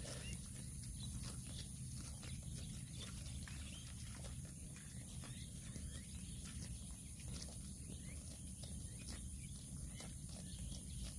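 Cattle grazing: irregular short crunching clicks of grass being torn and chewed, over a steady low rumble.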